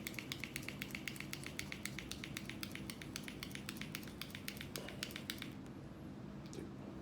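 Rapid, even clicking, about seven clicks a second, that stops about five and a half seconds in, over a steady low hum.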